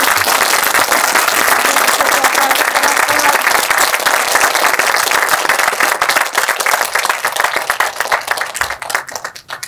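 Audience applauding steadily; the clapping thins out and dies away near the end.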